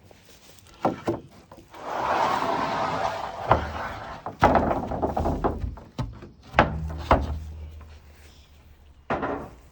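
Heavy wooden thuds and knocks with a stretch of scraping, as a log is dragged and dropped into place.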